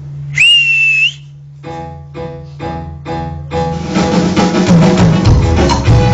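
A loud, shrill whistle lasting about a second, then a live band plays four short chord hits about half a second apart and kicks into upbeat Latin-style dance music with percussion.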